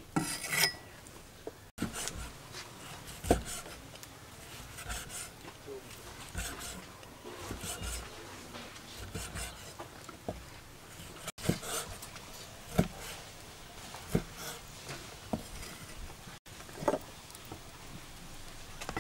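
Cleaver on a thick wooden chopping block slicing sausage: irregular single knocks every second or few, with faint rustling and handling between them.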